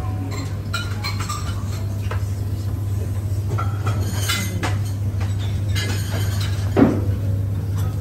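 Breakfast buffet room sound: scattered clinks of dishes and cutlery over a steady low hum, with one louder knock near the end.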